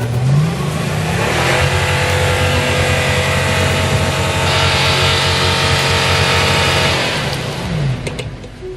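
Lexus LX470's 4.7-litre V8 revved hard and held at high revs for several seconds, then dropping back near the end.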